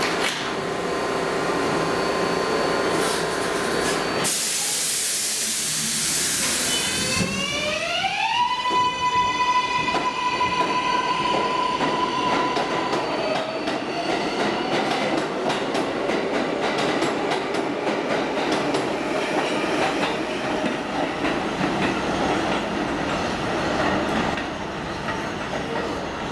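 Kawasaki R188 subway train pulling out. About four seconds in there is a burst of air hiss. Then the propulsion whine glides up in pitch and holds a steady tone, and it gives way to wheel and car noise with rapid clicking as the cars roll past.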